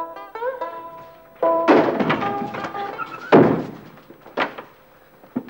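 Plucked-string background music, broken by three loud, heavy thunks with ringing tails, the loudest in the middle.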